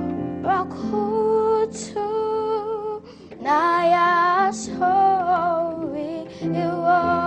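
A boy singing a slow gospel worship song in long, wavering held notes over a steady instrumental accompaniment; the singing breaks off briefly about three seconds in.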